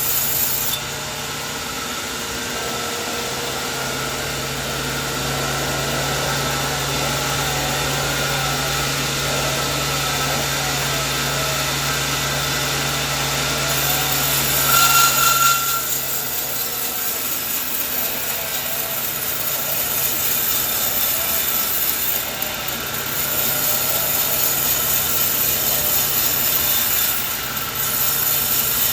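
Sawmill saw cutting a coconut tree trunk: a steady machine hum under the noise of the blade in the wood, briefly louder about halfway through.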